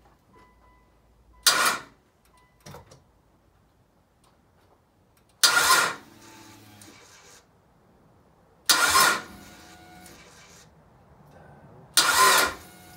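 Starter motor cranking the rebuilt Mitsubishi Lancer Evolution VIII's turbocharged 4G63 four-cylinder in four short bursts of about half a second each, a few seconds apart, each cut off suddenly without the engine catching and running.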